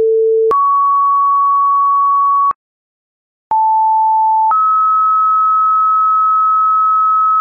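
Two-tone sequential fire dispatch paging tones: a low tone steps up to a higher steady tone held about two seconds, then after a one-second pause a second pair sounds, a mid tone for about a second stepping up to a higher tone held about three seconds.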